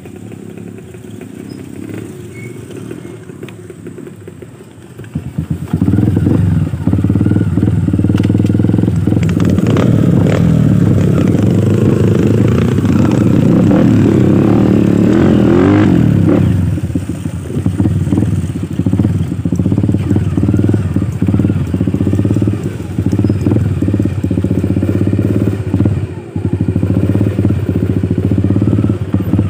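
Dirt bike engine running on a rough trail, fainter for the first few seconds and then close and loud from about five seconds in. It revs up in the middle, then runs choppy and uneven with throttle blips toward the end as the bike labours through a muddy rut.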